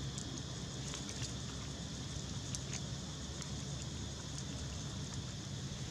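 Outdoor background with a steady low rumble and scattered light crackles of dry leaf litter as macaques shift on it.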